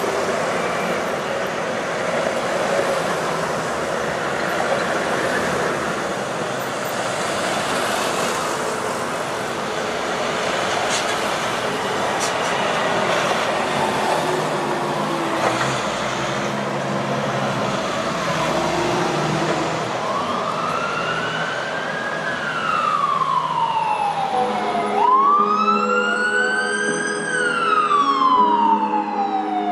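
Street traffic as military Humvees and a cargo truck drive past, engine and tyre noise. In the last ten seconds a siren wails, rising and falling twice.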